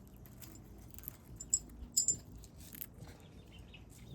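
Faint, scattered crunches of a potato chip being bitten and chewed, with a few sharper crackles about two seconds in.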